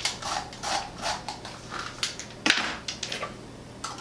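A metal scoop scraping the seeds and stringy pulp out of a halved raw spaghetti squash, in short repeated strokes a few times a second, one stroke louder about two and a half seconds in.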